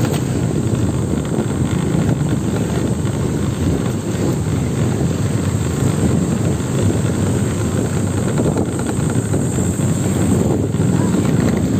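Motorcycles running steadily along a road and passing close by, mixed with wind rumble on the microphone.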